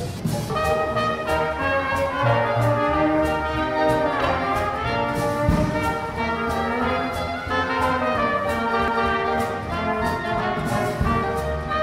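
A six-piece jazz band playing an upbeat tune: trumpet, trombone and clarinet lines over piano, bass and drums keeping a steady beat.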